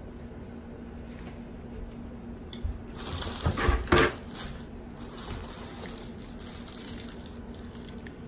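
A steady low hum, with a brief burst of rustling and a few knocks about three seconds in from a person turning and shifting close to the microphone.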